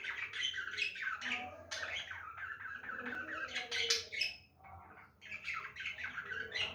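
Budgerigar chattering: a rapid run of chirps, squawks and warbles, with a short pause a little past the middle.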